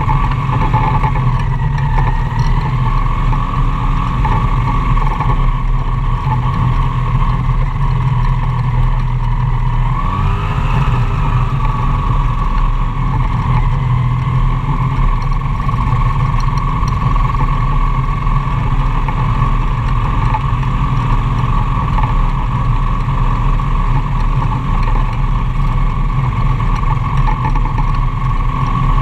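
Magni M-22 Voyager gyroplane's engine and pusher propeller running steadily while it taxis on grass, heard close up from the open cockpit. The engine note rises briefly about ten seconds in, then holds steady.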